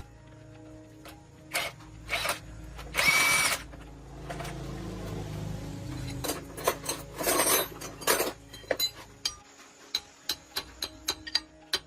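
Hand tools working on metal: scattered knocks and clanks, a short scraping burst about three seconds in, then a quick run of light taps near the end, over a low hum that stops about nine seconds in.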